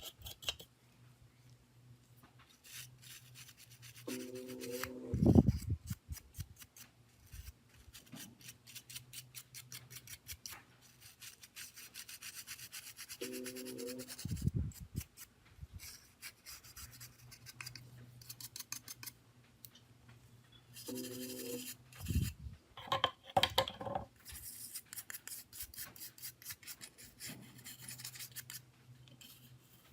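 Scraping, rubbing and clicking from hand work on small phone parts, with a short low hum followed by a knock three times, about eight seconds apart.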